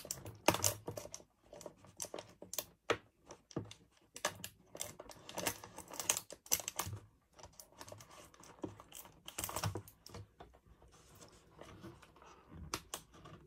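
Irregular clicks, taps and crinkles of an action figure's plastic packaging being handled and pulled apart as the figure is worked free of its tray.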